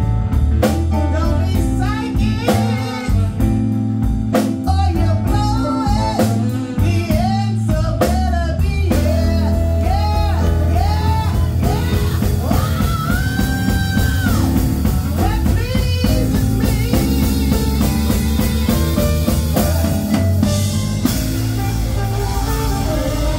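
Live band playing with electric guitar, keyboards and drums, and a singer over them; the singer holds one long high note about halfway through.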